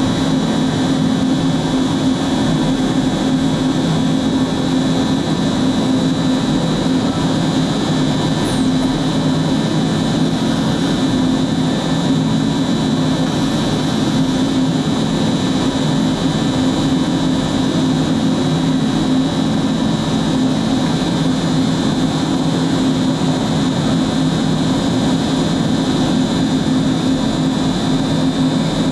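MultiCam 5000 Series CNC router running, its gantry carrying the spindle across the table while the spindle and dust extraction give a loud, steady whir with a high, even whine.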